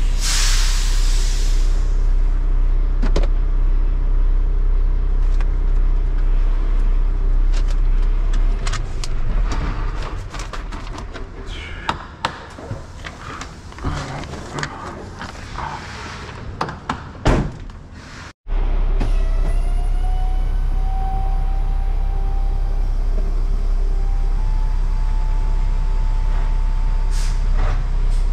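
Semi-truck diesel engine idling steadily, heard from inside the Peterbilt's cab. A burst of hiss comes at the start. In the middle the idle is quieter, with scattered clicks and rustles, before it returns to a steady run.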